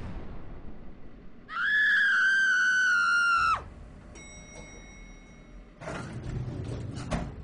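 A high-pitched scream held for about two seconds, starting about a second and a half in. Before it a noisy crash dies away, and near the end come rough bursts of noise.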